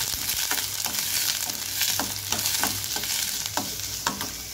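Chopped onions and garlic sizzling in hot oil in a metal kadai while being sautéed, with a steel spoon stirring and scraping against the pan in repeated short strokes, a couple to a few a second.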